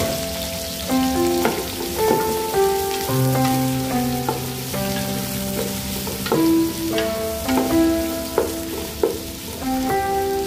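Sliced red onions sizzling in oil in an aluminium pot as they are stirred with a wooden spatula, under background music of held notes that change about every half second, with a few sharp clicks.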